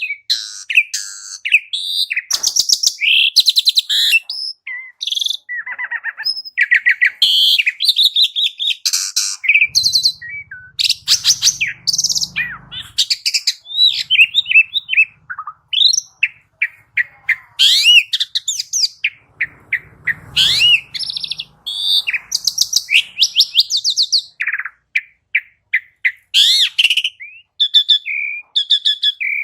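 Pied starling (jalak suren) singing continuously: a fast, varied run of loud whistles, rising and falling chirps and harsh chattering notes, with hardly a pause.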